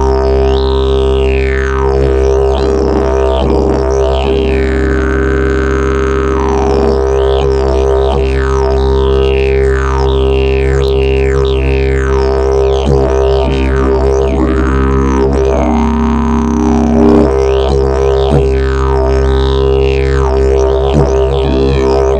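Fiberglass and prickly pear fiber double-slide didgeridoo played as a steady low drone, the player's mouth shaping repeated falling sweeps in the overtones about once a second, with a brief extra tone over the drone around the middle.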